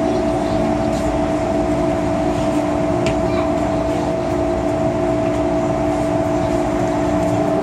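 MTR M-Train electric multiple unit heard from inside the carriage: a steady whine of several tones from the traction equipment over the rumble of the wheels on the rails, as the train runs into a station platform.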